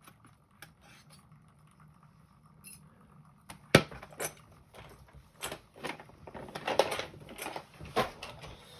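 Small metal clicks and rattles of a lock and lockpicking tools being handled, sparse at first, with one sharp click just under four seconds in and a busier run of clicking and clatter after it.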